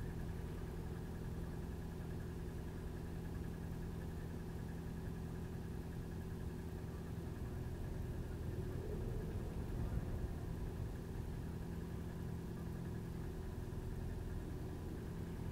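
Nissan March engine idling steadily, carrying the abnormal noise whose cause the owner is asking about. The level swells slightly about nine to ten seconds in.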